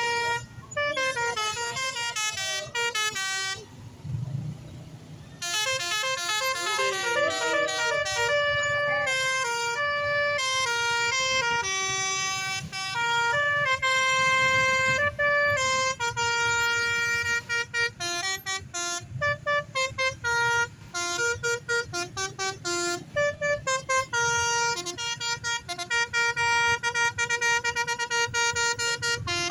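Bus's Basuri telolet multi-tone horn playing a string of tunes note by note over a low engine rumble. There is a short break about four seconds in, and the notes come in quick, choppy bursts through the second half.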